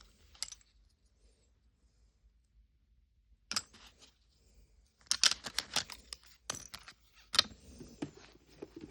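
Small plastic miniature toy pieces and their packaging being handled, clicking and crinkling in several short bursts, the busiest about five seconds in, after a quiet stretch of a couple of seconds.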